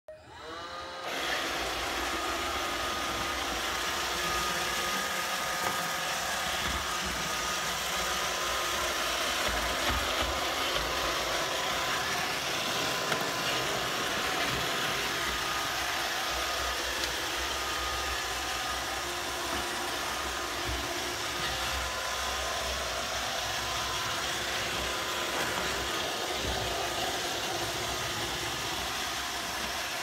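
iRobot Roomba 761 robot vacuum starting up in the first second, then running steadily over a hardwood floor: its vacuum motor and brushes make a constant whir with a faint steady whine.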